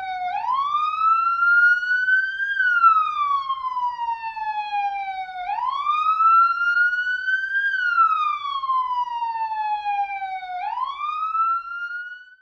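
Police siren sounding a slow wail, its pitch rising for about two seconds and falling for about three, over and over, with no other sound beneath it.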